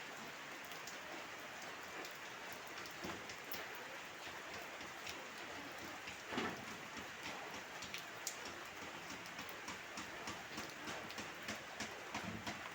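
Heavy rain falling steadily, with many sharp drop ticks striking a surface and one louder knock about six seconds in.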